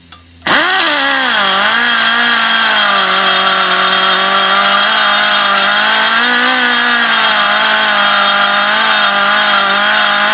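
Air-powered die grinder with a carbide burr starting up about half a second in, then whining steadily while it grinds out a bolt hole in the metal skid plate. The pitch sags and wavers as the burr bites, a sign that the grinder is under load.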